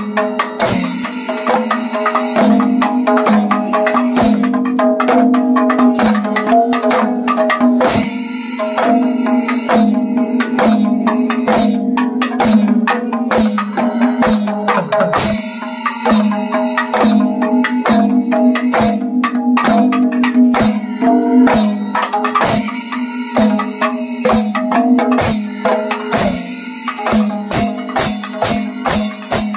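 A group of maddalam barrel drums played together in panchavadyam: dense, driving hand strokes over a steady ringing drum tone, breaking into a quick even run of strokes near the end.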